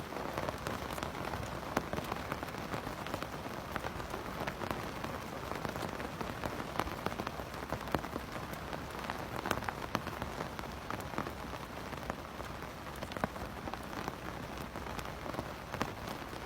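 Steady rain falling on a surface, a continuous hiss with individual drops heard as scattered sharp ticks.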